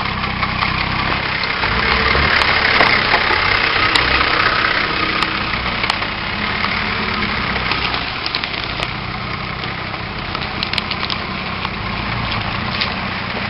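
Nissan Patrol Y60's 4.2 diesel engine running at low revs as the 4x4 crawls over rough ground. It grows louder a couple of seconds in, then eases back, with occasional sharp cracks.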